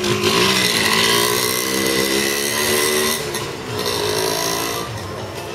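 A small motor vehicle's engine running close by, its pitch rising over the first second and then holding steady, easing off after about three seconds.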